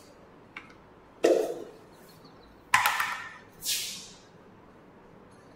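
Short scraping strokes of a marker on a whiteboard: three loud strokes about a second apart, each fading quickly, after a light tap about half a second in.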